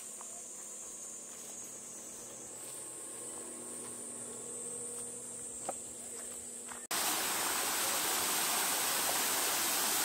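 A steady high buzz of insects with a faint tap, then a sudden cut to the louder, even rush of a small waterfall pouring over rocks.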